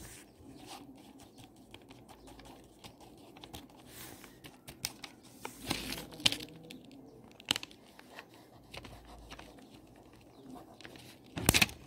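Ballpoint pen scratching and tapping on notebook paper, with light clicks and paper rustling; a short, louder rustle near the end.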